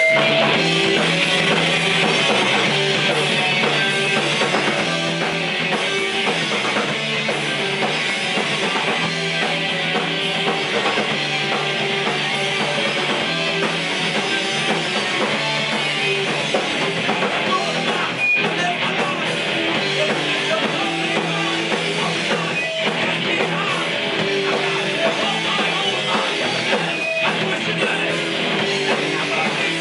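A rock band playing live: electric guitar, bass guitar and drum kit together in a loud, steady instrumental passage.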